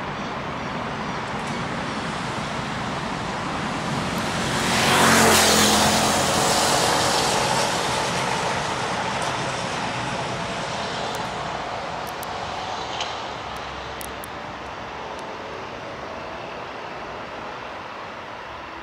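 Steady traffic noise, with a large motor vehicle passing close about five seconds in: its sound swells, drops in pitch as it goes by, and fades slowly.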